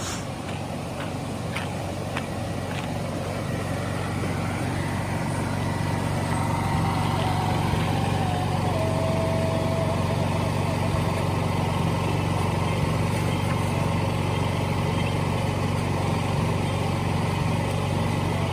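A motor running steadily with a low hum, over the rush of a fast-flowing creek; it gets louder about six seconds in.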